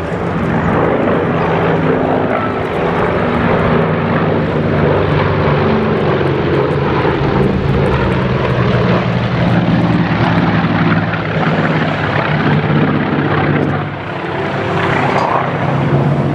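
Piston engines of World War II propeller fighters running in flight, a loud, steady drone of several tones whose pitch shifts slightly, briefly dropping in level about 14 seconds in.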